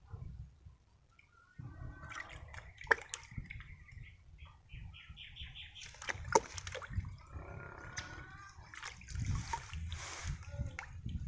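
Liquid sloshing and splashing in a bucket of antifungal solution as a banana corm is dipped and worked in it by hand, with two sharp knocks about three and six seconds in. Birds call in the background.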